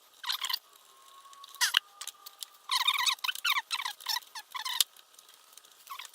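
Sanding sponge rubbing back and forth on a 3D-printed plastic knife part, taking it down to fit. A few strokes come at first, then a quick run of about four a second from about 3 to 5 seconds in.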